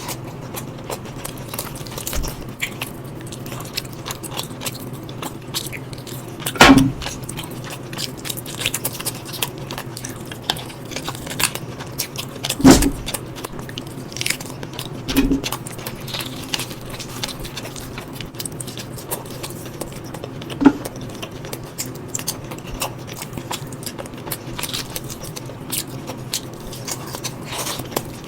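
A person chewing and biting food close to the microphone, eating chicken curry with rice and boiled eggs: many small wet clicks and smacks throughout over a low steady hum, with a few louder knocks.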